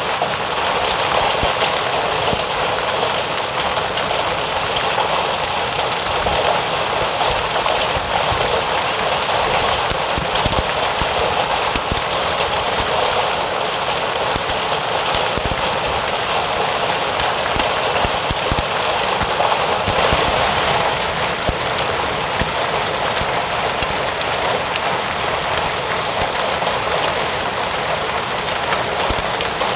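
Heavy hail and rain falling together: a dense, steady hiss of rain peppered with many small ticks of hailstones striking the ground.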